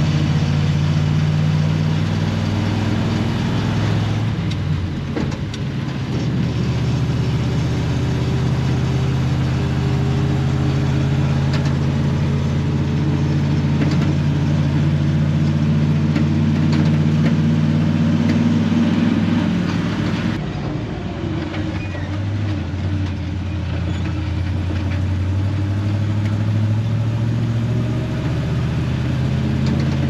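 Old farm truck's engine running under way, heard from inside the cab. The engine note climbs as the truck accelerates and drops back twice, a few seconds in and again about two-thirds of the way through.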